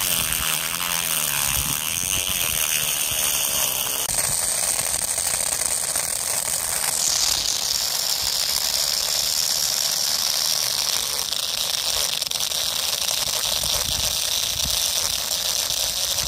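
Small DC motor spinning a plastic drill bit into sand: a steady whir that changes tone about four and seven seconds in.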